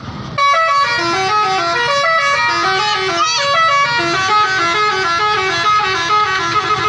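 Indonesian 'telolet' bus horn, a multi-tone musical horn, playing a quick tune of short stepped notes, with a fast swoop up and back down about three seconds in.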